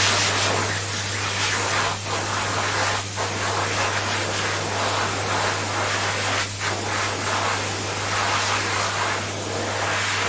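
Electric hand dryer running: a steady rush of blown air over a low motor hum, with a few brief dips in the airflow.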